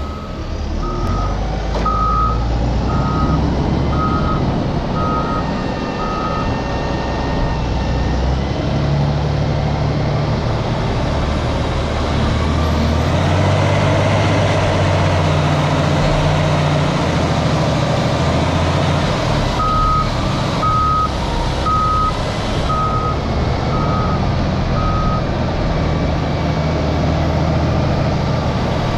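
Diesel engine of a loading machine working under load, its note rising and falling as it pushes up the heap. A reversing alarm beeps about once a second while it backs up, for about six seconds at the start and again from about two-thirds of the way through.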